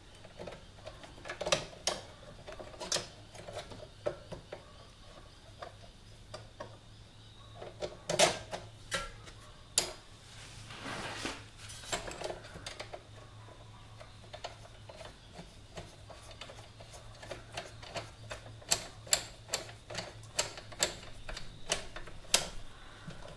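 Small metallic clicks and taps from the Honda CB125E's rear brake rod and its adjusting nut as they are fitted to the drum brake arm and the nut is turned onto the rod's thread by hand. The clicks come scattered at first and grow quicker, about two a second, near the end.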